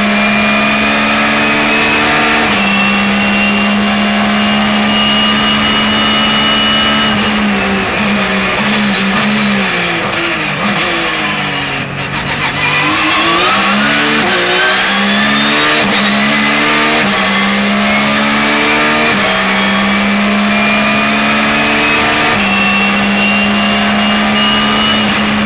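Porsche 911 GT3 R race car's 4.0-litre flat-six engine heard from inside the car at high revs, shifting up through the gears. About eight seconds in the pitch falls under braking, with downshifts. It then climbs again through a run of quick upshifts.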